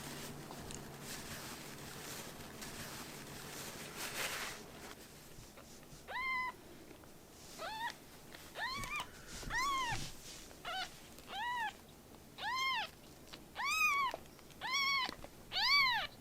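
A baby kitten meowing repeatedly, about ten short high-pitched meows roughly one a second, each rising and falling in pitch and growing louder toward the end. Before the meows start there is a few seconds of faint rustling.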